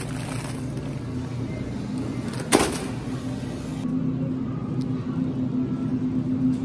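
Supermarket background: a steady low hum with a rumble underneath, and one sharp clack about two and a half seconds in.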